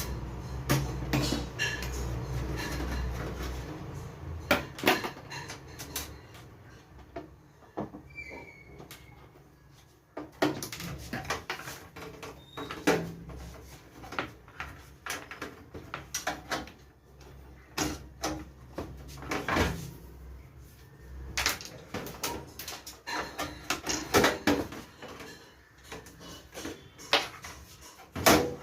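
Irregular clicks, knocks and rattles of metal and plastic computer parts being handled and taken apart. A low hum runs under the first few seconds.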